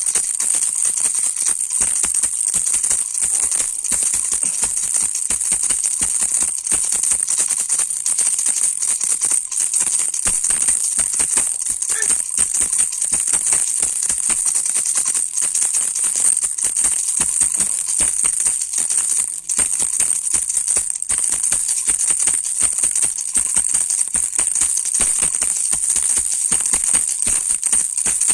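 Baby rattle toy shaken continuously, its loose beads rattling in fast, dense clicks with no break.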